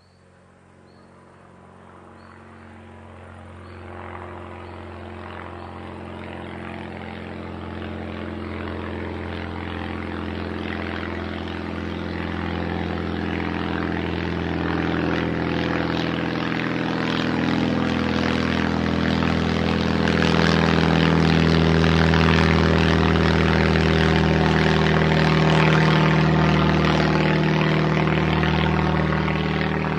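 Small plane flying in, its engine and propeller growing steadily louder for about twenty seconds to a peak, then beginning to fade slightly near the end.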